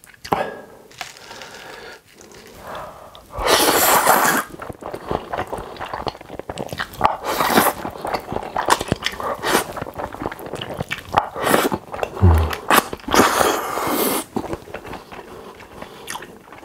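Close-miked eating of carbonara fire noodles: long, loud slurps of noodles, the strongest about three and a half seconds in and again around thirteen seconds, with wet chewing and small mouth clicks between them.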